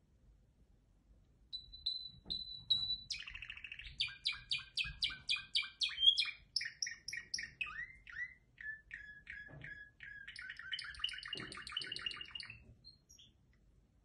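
Canary singing one long varied song of rapid trills and quick repeated chirps, starting with a few high notes and lasting about eleven seconds.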